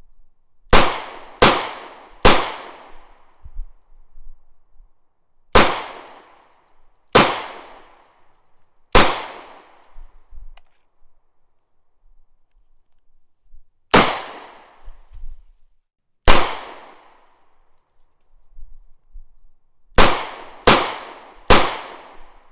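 Gunshots, single sharp shots each trailing off in a short echo. There are eleven: three in quick succession at the start, five spaced singles, then three more in quick succession near the end.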